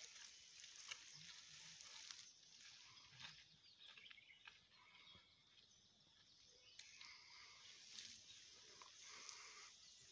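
Near silence: faint outdoor ambience, with a few soft footsteps on a damp dirt path.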